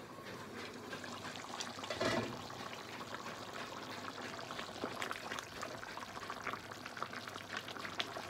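A pan of chicken and potato stew simmering on a gas stove, the sauce bubbling with a steady patter of small pops. A short, louder bump comes about two seconds in.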